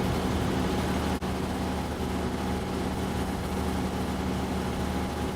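Combine harvester's diesel engine running steadily with a low, even hum, with a momentary dropout about a second in.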